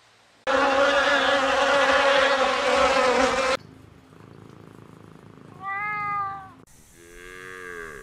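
Domestic cat giving a long, loud meow lasting about three seconds, then a second cat's shorter meow that rises and falls. Near the end a cow starts a low, falling moo.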